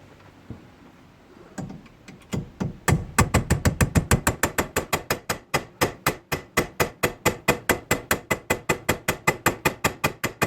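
Rapid hammer blows on a steel pin punch, about five a second, starting a couple of seconds in, driving at the seized roll pin in a 1965 Ford Thunderbird's column shifter lever. The pin is stuck fast and does not budge.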